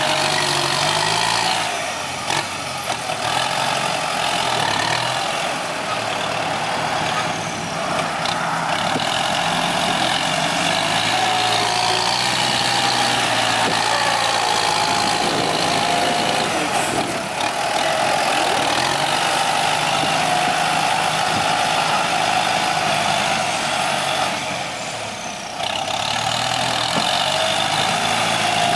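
Kubota M9540 tractor's four-cylinder diesel engine working under load as its front blade pushes soil and gravel, the engine note rising and falling with the load.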